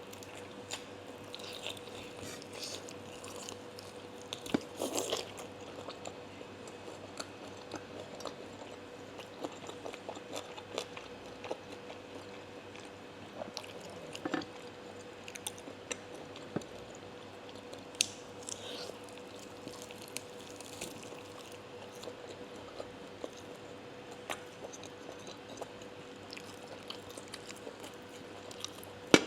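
Close-up biting, chewing and crunching of crispy deep-fried pork trotter, in irregular crunches and clicks.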